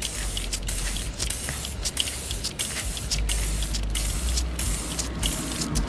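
WD-40 aerosol can spraying onto a motorcycle drive chain: a steady hiss broken by many brief pauses, over a low hum.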